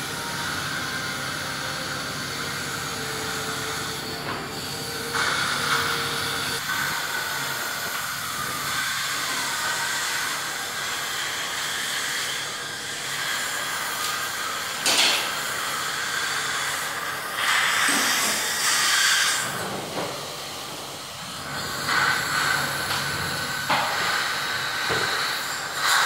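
Dental suction hose hissing steadily at the patient's mouth, with several louder rushing surges in the second half as it draws in saliva and air.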